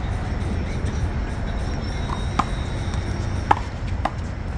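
One-wall handball rally: the rubber ball smacks sharply off hands, wall and court, four hits about two to four seconds in, each with a short ring, over a steady low rumble.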